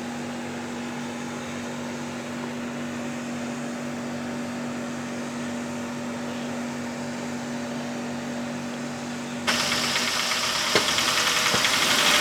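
Car engine idling with a steady hum. About three-quarters of the way through, the sound abruptly gets louder and harsher, with two sharp clicks near the end.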